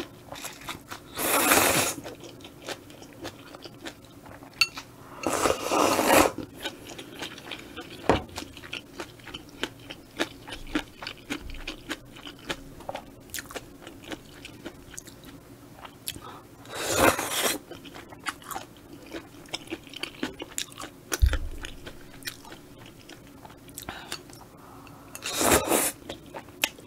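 Close-miked eating of spicy stir-fried squid with udon noodles: steady chewing with many small wet clicks, and four loud slurps from the bowl, about a second in, around five seconds, around seventeen seconds and near the end. A short low thud about three quarters of the way through.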